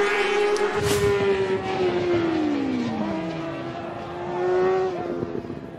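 Racing motorcycle engines running at a circuit. About two seconds in, one engine's note falls steadily over a second and a half as a bike goes by and eases off.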